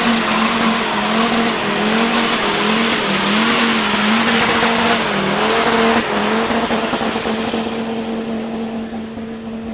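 Mercedes-Benz E-Class engine held at high revs during a burnout, its pitch wavering up and down about once a second over the hiss of spinning rear tyres. About six seconds in, the engine note steadies and the tyre noise fades away.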